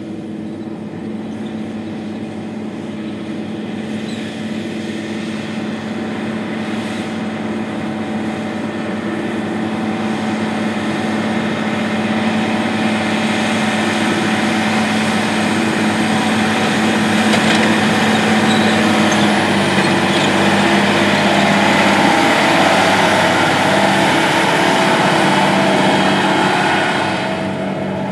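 Case IH Steiger 580 Quadtrac tractor's 580-horsepower diesel engine running steadily under load while it pulls a strip-till bar through the soil. It grows gradually louder as the tractor comes closer, then drops briefly near the end.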